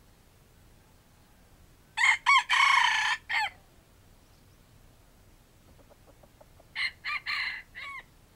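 Red junglefowl rooster crowing twice: one loud crow about two seconds in, then a few faint clucks and a second, quieter crow near the end.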